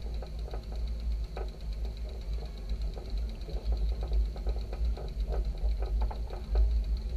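Mobility scooter's electric motor whining steadily as it tows a trimaran on its trailer, with the trailer and boat fittings rattling and knocking irregularly over the ground and a heavy low rumble underneath.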